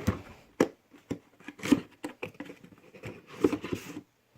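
Hands unpacking a cardboard parts box: a string of short rustles, clicks and light knocks from the box and its packing material, with quiet gaps between them.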